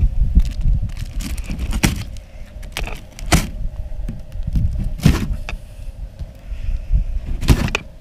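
A large cardboard shipping box being cut open and handled: a handful of sharp knocks and rips a second or two apart, over a low steady rumble.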